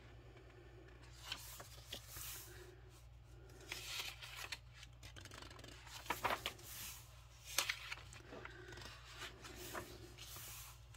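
Pages of a paperback coloring book being turned one after another, each turn a short, faint papery swish, several spread across the stretch.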